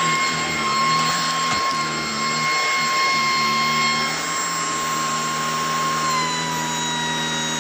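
Shark DuraClean cordless vacuum cleaner running, a steady high motor whine over a lower wavering hum; the whine drops slightly in pitch about six seconds in.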